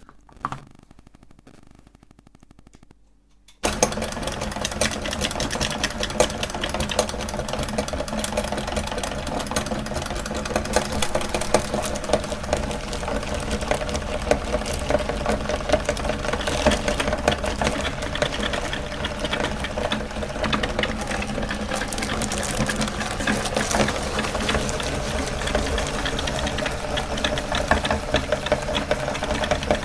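Meat grinder switched on about three and a half seconds in and then running steadily with a dense mechanical rattle and a steady hum. Before that there is a single sharp click.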